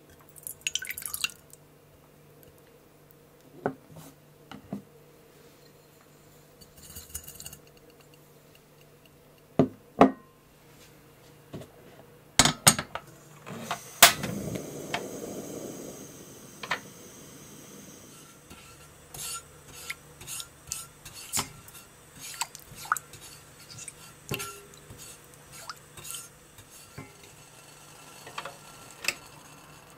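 Water poured from a glass measuring cup into a stainless steel saucepan about a second in, then a run of kitchenware handling sounds: several sharp knocks of glass and metal bowls and pans being set down in the middle, and many light clinks of utensils near the end.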